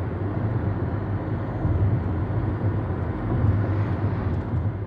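Car driving at road speed, heard from inside the cabin: a steady drone of engine and tyre noise with a low hum.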